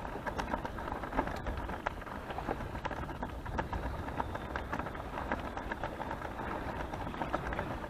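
Choppy water lapping and splashing against a small boat's hull, a dense patter of small crackles, with wind noise on the microphone.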